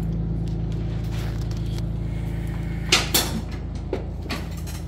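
A steady low hum runs throughout, with two sharp knocks close together about three seconds in.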